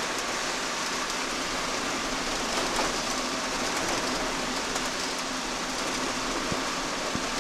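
Steady hiss of heavy rain and tyres on a wet road, heard inside the cab of a camper van on the move.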